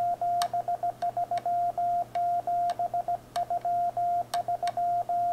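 Morse code (CW) sidetone from a Yaesu FT-857 transceiver, keyed with a homemade paddle key: one steady mid-pitched beep broken into short dots and longer dashes at an even sending pace, with faint clicks at some of the key strokes.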